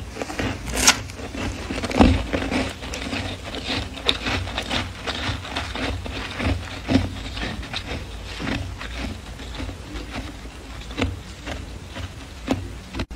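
Freezer frost crunching: an uneven run of crackles and scrapes, with sharper crunches every few seconds.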